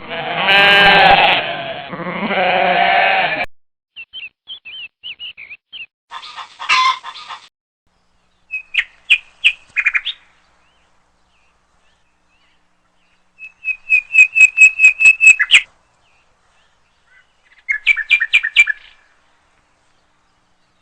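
A goat bleating twice, loud and wavering, followed by short high bird chirps in scattered bursts, including a fast run of chirps about two-thirds of the way in.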